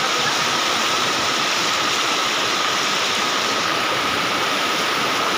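Fast-flowing muddy floodwater rushing through a village street, a loud, steady, unbroken rush of water.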